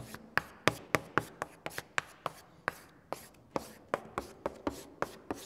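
Chalk writing on a blackboard: an irregular run of sharp chalk taps and short strokes, about four a second, as letters are chalked.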